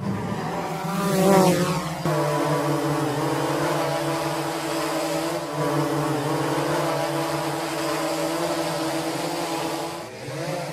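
Quadcopter drone buzzing, a steady whine of several pitches together. About a second in it swells louder and its pitch swoops as it passes close, then holds steady and fades just before the end.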